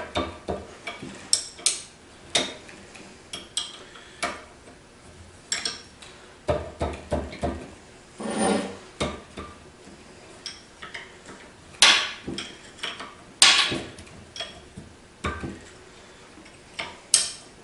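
A combination wrench working the bolts off a pillow block bearing's end cap: irregular metal clicks, clinks and knocks as the wrench turns and shifts on the bolt heads and metal parts are handled, with one short scrape about eight seconds in.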